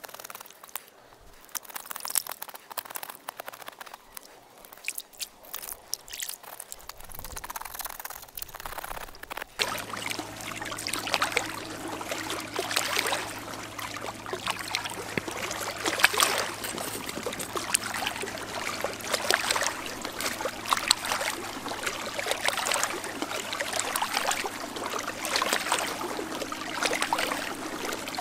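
A knife scraping the scales off a fish in quick strokes, then, from about a third of the way in, louder water splashing and trickling as the fish is gutted and rinsed in the river shallows.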